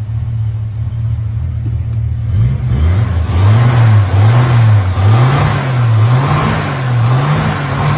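Rover P4's straight-six engine idling steadily, then from about two and a half seconds in revved repeatedly, the engine note rising and falling about once a second; sweet running.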